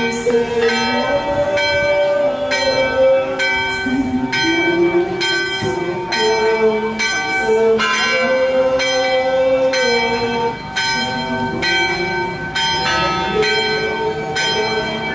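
A church bell ringing for the funeral as the coffin is carried out, about two strikes a second, each strike left ringing. A slow melody of held notes, moving step by step, goes on beneath it.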